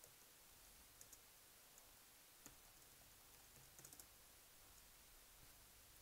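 Faint computer keyboard keystrokes over near silence: a few single key clicks, then a quick little run of them about four seconds in.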